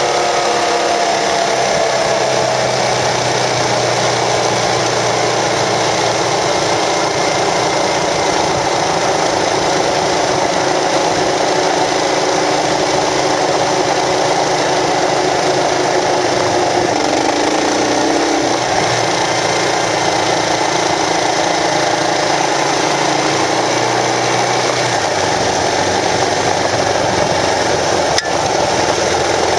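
Kawasaki KLR650 single-cylinder motorcycle riding at speed, heard from a camera mounted on the bike: steady wind rush over the microphone with the engine running underneath, its pitch falling in the first few seconds.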